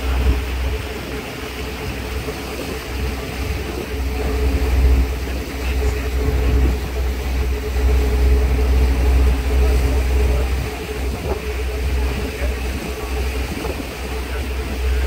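Boat's engine running steadily, a deep low rumble with a steady hum over it, with wind on the microphone.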